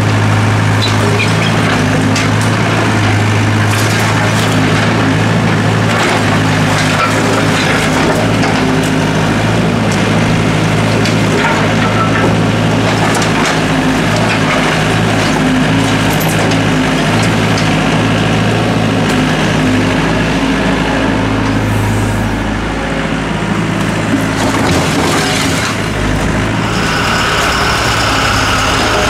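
Doosan DX55W wheeled mini excavator's diesel engine running steadily under load, with its bucket scraping and knocking through broken bricks and rubble in irregular clatters. A higher whine comes in near the end.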